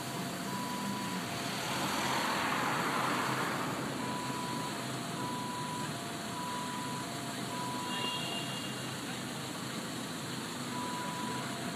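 Fire service two-tone alert sounding a steady high note and a shorter lower note in turn, about once every second and a half, over the noise of traffic. A vehicle passes, loudest about two to three seconds in.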